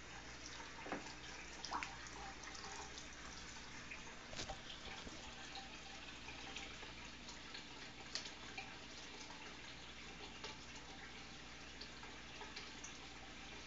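Hang-on-back aquarium filter spilling a steady stream of water back into a turtle tank, a faint constant trickle with a few louder drips.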